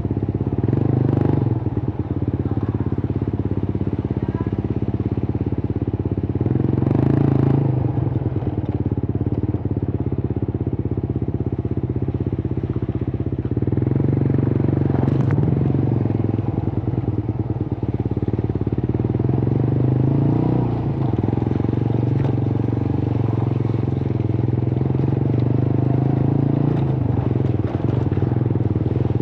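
Suzuki GSX-R150's single-cylinder engine running through a cut-open exhaust, its pitch holding fairly steady with small rises and dips.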